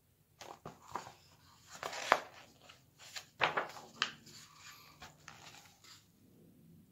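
Handling noise: a hardcover picture book being moved about, a run of short rustles, scrapes and knocks that die down near the end.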